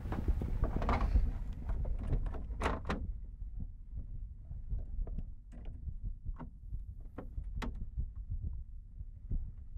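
Handling noise of computer parts in a PC case: a rustle at first, then scattered light clicks and taps of small parts such as standoffs and screws being handled.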